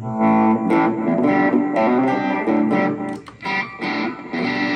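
Electric guitar played through a Zoom G5n multi-effects processor, picking a quick run of notes, several a second, with a short break a little after three seconds.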